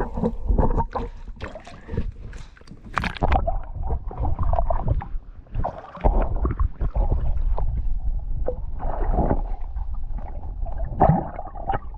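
Knocks and water sounds from moving about in a canoe, over an uneven low rumble.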